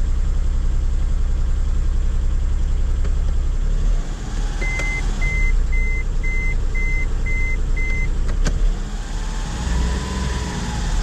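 Toyota Duet engine running at a raised idle, which the owner considers too high, with misfires he has noted. About halfway through, a car's electronic warning beeper sounds seven short beeps, about two a second, followed by a single click.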